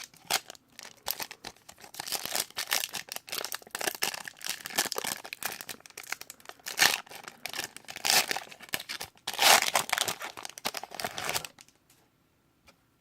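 Foil trading-card pack wrapper being torn open and crinkled in the hands, a dense crackling that stops suddenly about a second and a half before the end.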